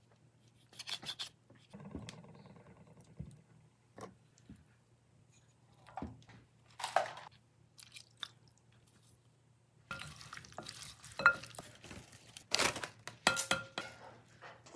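Raw chicken drumsticks being handled in a glass bowl and marinade ingredients added, with lemon juice poured in. Over the last five seconds or so, a fork mixes the chicken, clicking and scraping against the glass. A faint steady low hum runs underneath.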